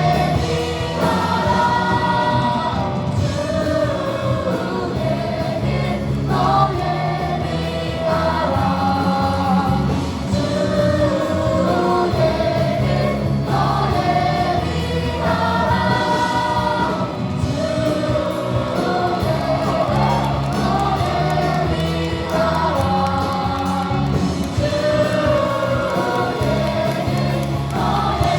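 A church youth choir singing a praise-and-worship song live with instrumental accompaniment, the voices carrying a continuous melody over a steady bass line.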